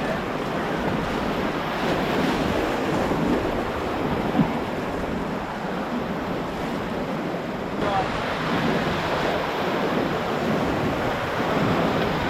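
Ocoee River whitewater rushing steadily around the raft, with wind noise on the microphone. There is one sharp knock about four seconds in.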